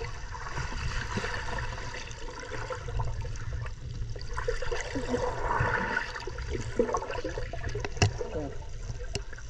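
Muffled rushing and bubbling of pool water heard from underwater, with a constant low rumble, swelling louder twice as a swimmer turns flips beneath the surface.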